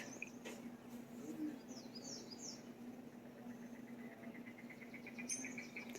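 Faint wild birds calling: three quick falling chirps about two seconds in, then a rapid trill of short repeated notes through the second half.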